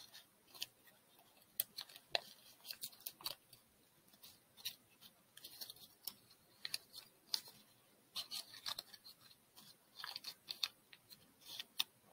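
Folded origami paper crinkling and crackling in faint, irregular snaps as fingers pinch and press it into shape.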